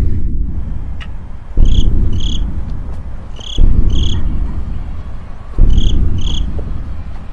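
A low rumbling boom that hits suddenly every two seconds and dies away, with a pair of short high cricket-like chirps on each cycle. The pattern repeats exactly, which makes it a looped eerie ambient sound track.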